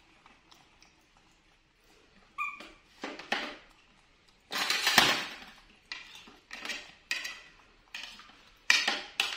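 Dishes and utensils clattering: a run of sharp clinks and knocks beginning about two seconds in, one ringing briefly, the loudest a longer clatter near the middle, then more clinks in quick succession.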